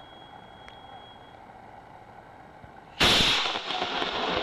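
A model rocket's Aerotech RMS G64 reloadable motor igniting at liftoff about three seconds in: a sudden, loud, steady rushing burn after a quiet wait.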